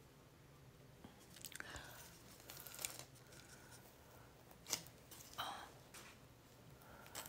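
Faint scratchy rustles and a few light clicks from a watercolour brush being worked in paint and handled, at irregular moments.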